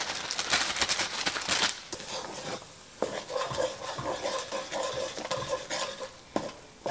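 Mini marshmallows tumbling into a pot of hot brown butter, with the butter sizzling, then a spatula stirring and scraping them around the enamelled pot, with a couple of clicks of the spatula against the pot.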